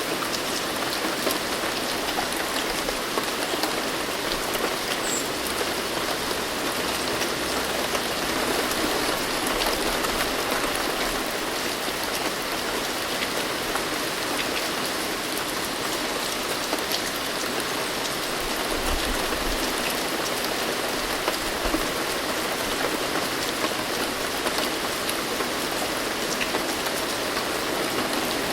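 Steady rain falling and pattering on surfaces, an even hiss of many drops with no thunder.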